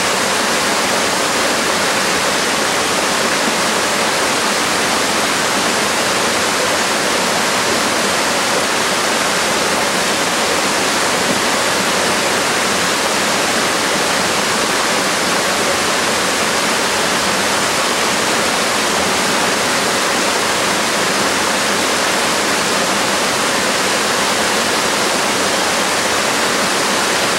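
Small waterfall and cascade of a gorge stream, white water pouring over rock ledges in a steady, loud rush.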